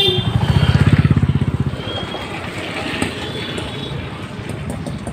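A motor vehicle's engine passing close, its fast low pulsing loudest about a second in and then fading into steady street traffic noise.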